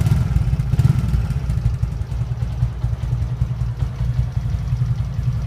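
TVS Flame 125cc single-cylinder motorcycle engine idling through a half Bullet-style silencer, giving a deep, thumping exhaust note of rapid low pulses. It is slightly louder in the first second, then runs steadily.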